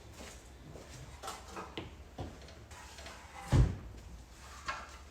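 A few light knocks and clunks, then a single heavy thump about three and a half seconds in, and another knock near the end.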